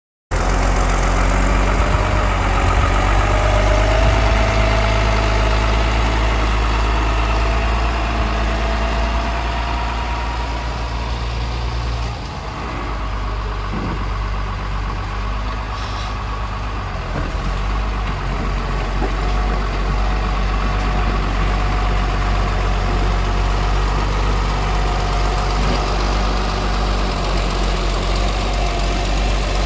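Motor grader's diesel engine running steadily with a low drone.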